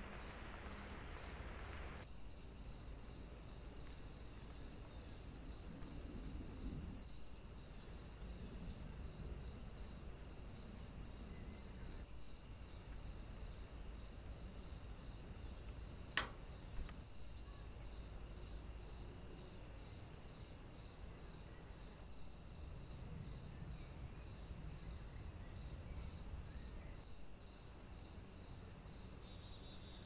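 Faint, steady high-pitched insect chorus of crickets or bush crickets with an even, regular pulsing. One sharp knock about halfway through, as a bird lands at the hanging tube feeder, with a lighter tick just after.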